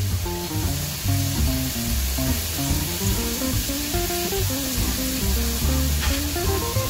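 Sliced onions and bell peppers sizzling steadily in a hot nonstick frying pan as they are stir-fried with a metal spatula, over background music with a stepping melody.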